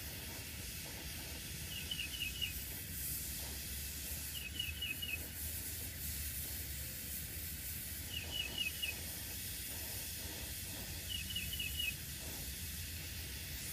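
Brazing torch flame hissing steadily as it heats a copper refrigerant-line joint to sweat the brazed fitting loose from the evaporator coil. A short run of four high chirps repeats about every three seconds over it.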